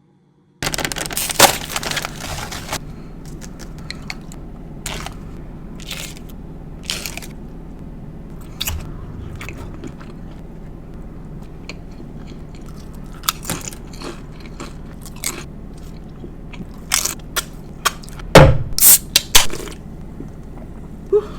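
Close-miked biting and chewing of a mini crunch wrap: a long crisp crunch about half a second in, then scattered crunches while chewing, and a run of loud crunches near the end as another bite is taken.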